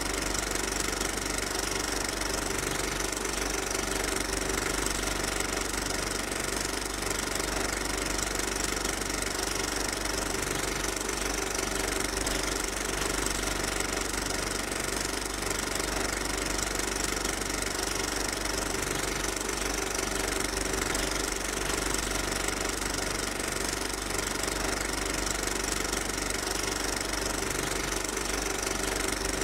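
A machine running steadily: an even, unchanging mechanical noise with a constant hum.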